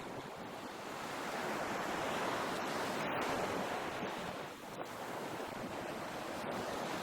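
Ocean surf: a steady rush of breaking waves that swells and eases, dipping about four and a half seconds in before building again.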